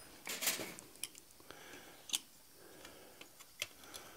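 A few light, separate metal clicks and clinks of pliers and tongs on a hot punched iron bar and the anvil, as a punching slug that has not broken free is worked loose.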